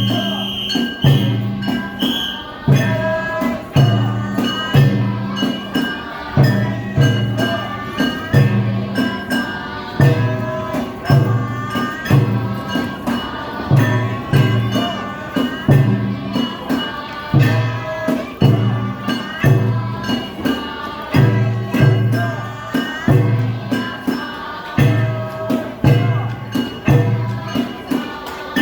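Japanese summer-festival music: a deep taiko drum struck on a steady, even beat, with ringing metal bells or cymbals and a wavering melody over it.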